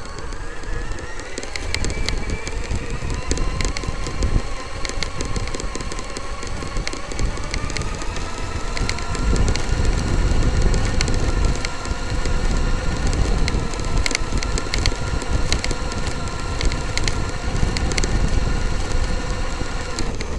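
Traxxas X-Maxx RC monster truck driving over bumpy grass, heard from a camera mounted on it. Its brushless electric motor whines, rising in pitch as it speeds up about a second in and again around eight seconds in, over a constant rumble from the tyres and chassis with scattered sharp clicks.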